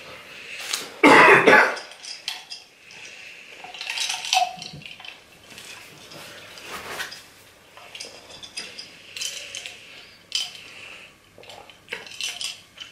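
Close-miked eating and drinking: a loud crunchy bite of an onion ring about a second in, then chewing and sips through a straw from a glass jar, with light clicks and clinks.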